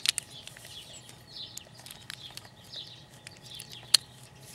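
Plastic Lego bricks clicking and tapping as a brick is handled and pressed onto a model, with one sharp click about four seconds in. Small birds chirp over and over in the background.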